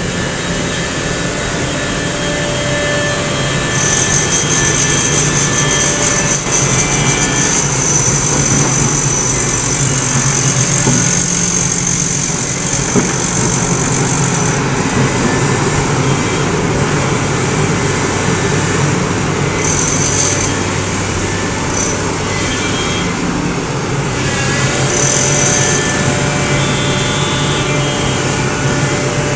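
SANY crawler excavator's diesel engine running under load as the machine digs and moves in mud: a steady drone, with a high hiss coming and going several times.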